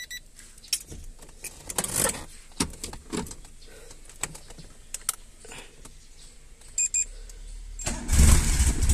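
Keys jangling and clicking as the key goes into the ignition of a Daihatsu Charade, with two short high beeps about seven seconds in. Near the end the engine cranks and starts at once, on the first turn of the key, after its top overhaul, and runs on steadily.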